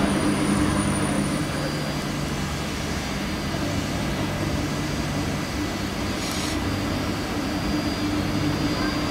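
Diesel locomotive engine running with a steady low drone, and a brief hiss about six seconds in.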